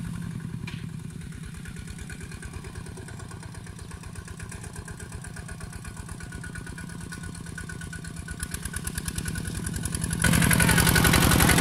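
Two-wheel walking tractor's engine running with a steady, rapid pulsing beat as it pulls a plough through dry soil. It fades a little in the middle, then is suddenly much louder and closer near the end.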